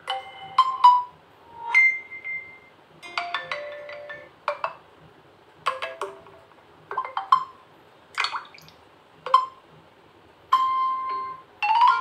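Vivo T1 44W phone's speaker playing message-tone previews one after another as each tone in the list is tapped. It is a string of short, different chimes and jingles, a new one about every second.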